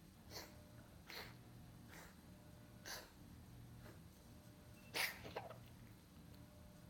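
A coughing fit set off by brushing the throat: about five short, sharp coughs at uneven intervals, the loudest about five seconds in.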